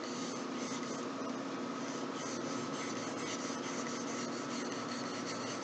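Steady room tone: an even hiss with a constant electrical hum.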